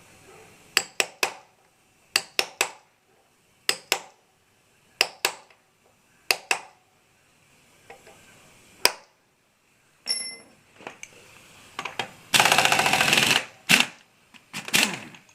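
Metal hand tools working the countershaft sprocket nut of a motorcycle: clusters of sharp metallic clicks and knocks, a short ringing metal ping about ten seconds in, then about a second of loud, rapid rattling near the end.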